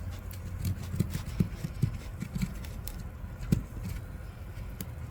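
Dull, irregular taps and knocks of a small digging tool chipping at the block of a toy volcano gem-dig kit, about half a dozen, the loudest about three and a half seconds in.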